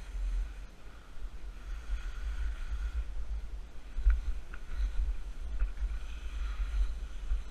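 Wind buffeting a GoPro camera on a skier moving downhill, a gusting low rumble, with the hiss of skis sliding and scraping over the snow. A few sharp clicks come in the middle, around four to five and a half seconds in.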